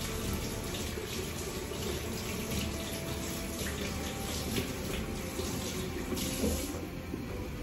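Kitchen tap running into the sink with splashing as hands are washed under the stream; the water is shut off near the end.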